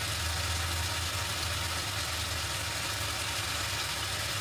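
Kitchen range hood extractor fan running: a steady low hum under an even rush of air.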